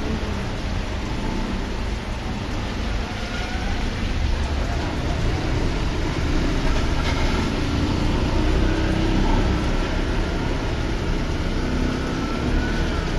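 Heavy rain pouring onto a wet street while three-wheeled auto-rickshaws drive past, their small engines running under the steady hiss of the rain.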